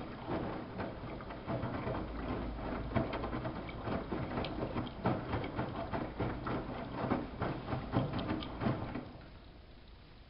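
Samsung WF71284 washing machine drum turning with wet laundry: water sloshing and splashing with irregular knocks over a low hum, stopping about nine seconds in as the drum pauses.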